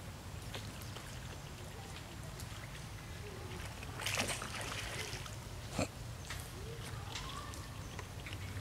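Macaques splashing in pond water, with a burst of splashing about four seconds in as an adult grapples with an infant, and a single sharp knock shortly after.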